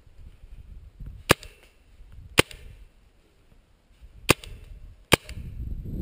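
Four single paintball marker shots, sharp cracks at uneven intervals, the last two closer together, while a low rumble swells near the end.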